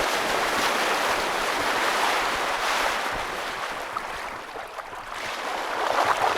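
Water rushing and hissing along the hull of a small sailing yacht, a Westerly Centaur, moving fast under sail before a strong wind. The rush eases about four seconds in and builds again.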